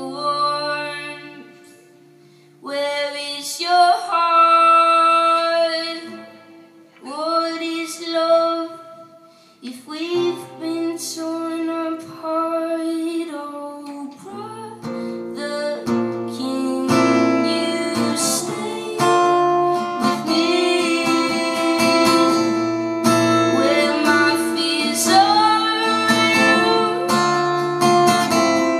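Live song with a woman singing over guitar. In the first half her phrases come in short bursts with brief pauses; from about halfway the guitar accompaniment fills out and the music runs on continuously.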